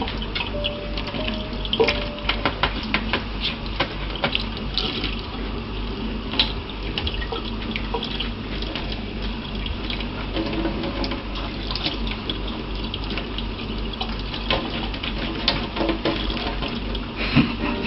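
Water running and splashing steadily, with many small clicks and knocks scattered through it.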